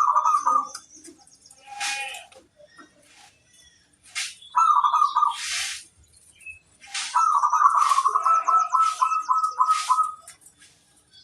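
Zebra dove (perkutut) cooing in three phrases of quick staccato notes, the last a long run of about nine notes, with short high hissing bursts between them.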